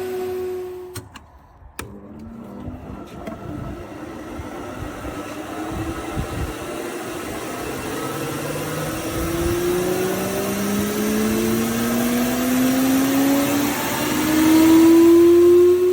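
Planer-thicknesser with a 7.5 kW motor and a four-knife cutterhead: its steady running hum stops about a second in. After a few clicks, the machine starts up again, its hum rising steadily in pitch and loudness as the cutterhead runs up to speed, and it runs loudest near the end.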